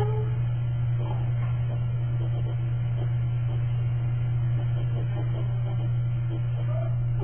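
A steady low electrical hum, unchanging in pitch and loudness, with only faint indistinct sounds above it.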